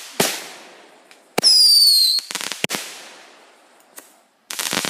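Consumer aerial fireworks going off: a sharp bang, then a high whistle lasting under a second that drops slightly in pitch, another bang, and a loud burst of hissing noise near the end.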